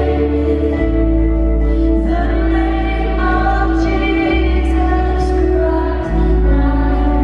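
Christian pop song with female singing over a steady bass line.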